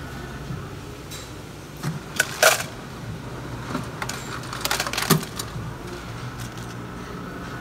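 Two quick runs of sharp clicks and clacks of hard objects, about two seconds in and again around five seconds in, over a steady background hum.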